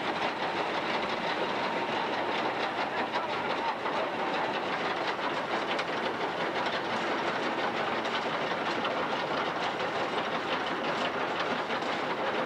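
Underground coal-mine machinery running with a steady, dense mechanical clatter.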